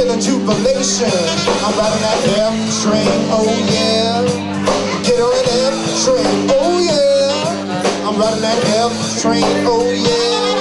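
A live rock band with electric guitar, saxophone and drums playing an instrumental passage: a lead melody bends up and down over steady sustained low notes and drums.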